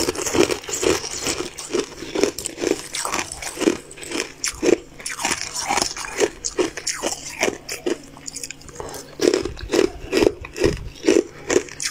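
Close-miked mouth crunching and chewing on hard, crystalline sweet pieces, a steady run of crisp crunches about two to three a second.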